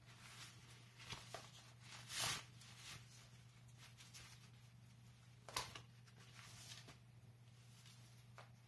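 Faint rustling of a water-resistant drawstring backpack and its plastic packaging bag being handled, with the loudest rustle about two seconds in and another sharp one a little past five seconds, over a faint steady hum.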